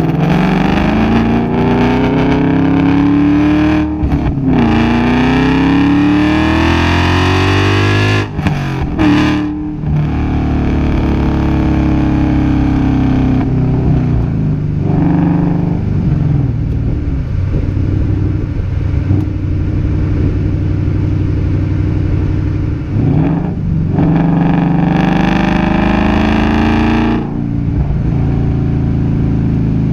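A 2015 Ford Mustang GT's 5.0-litre V8 running through American Racing headers, an H-pipe and Pure Thunder mufflers, with no catalytic converters or resonators. It pulls through the gears with rising pitch, drops at a shift about four seconds in, and climbs again to a second shift about eight seconds in. It then cruises steadily, makes another short pull, and settles back near the end.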